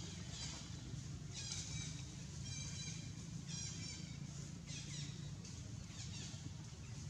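Repeated short, high-pitched animal calls, about one a second, over a steady low hum.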